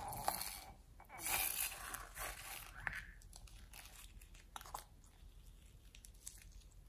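Slime being squeezed out of a balloon's neck into a bowl of glossy slime: wet crackling squelches in irregular spurts, strongest in the first three seconds and thinning out toward the end.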